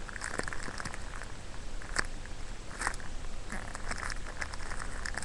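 Fingers squeezing and rubbing a foam squishy right at the microphone: a scattering of soft crackles and small clicks, with a few sharper ticks about two and three seconds in.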